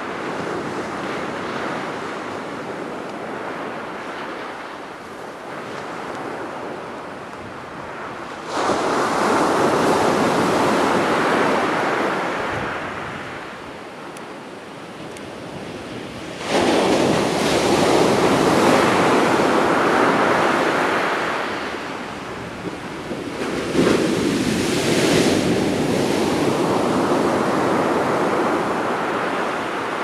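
Rough-sea surf breaking on a sandy beach. Three waves crash with a sudden rush about eight seconds apart, and each fades into the hiss of foam washing up the sand.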